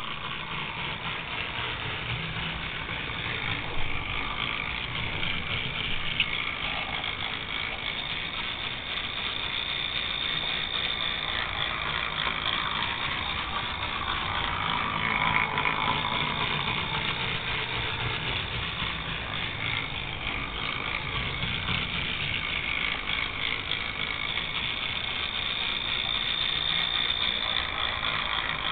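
Small electric motor and gear drive of a model Leyland PD2 double-decker bus converted to the Faller Car System, whirring steadily as the bus drives itself around the layout, with a couple of brief clicks in the first few seconds.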